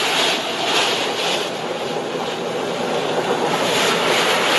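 Tornado wind rushing steadily around a truck, heard from inside the cab: a loud, even rushing noise that swells and eases every second or so.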